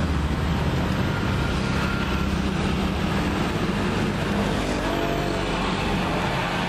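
A motor vehicle engine running steadily with a low-pitched drone, and a faint rising whine about five seconds in.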